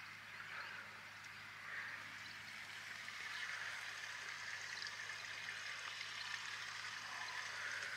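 Faint steady ambient hiss that swells and eases slowly, with a low steady hum beneath.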